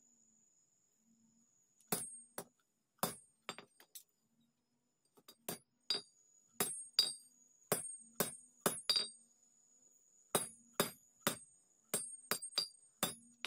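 Hand hammer striking steel on an anvil, in irregular single blows about one or two a second, each with a short high metallic ring, with a pause of a second or so in the middle. This is hand forging of a folded-steel golok blade.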